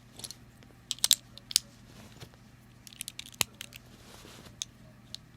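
Plastic Lego bricks clicking and snapping together as a small model is put back together by hand: scattered sharp clicks, with a cluster about a second in, more around three seconds in, and one more near the end.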